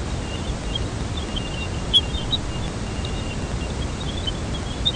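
Jupiter's radio emissions recorded by the Cassini spacecraft and played back as sound: a steady static-like rumble scattered with short high chirps and blips, with one sharp click about two seconds in.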